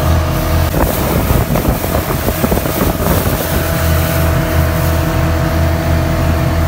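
Motorboat engine running steadily, heard from on board. From about a second in to about three and a half seconds, water splashing and rushing against the hull breaks through.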